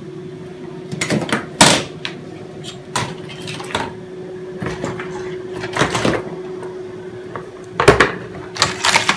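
Hard disk drives in plastic caddies knocking and clattering against each other as they are handled on a pile, in irregular clacks, two of them louder, a little under two seconds in and near the end, over a steady low hum.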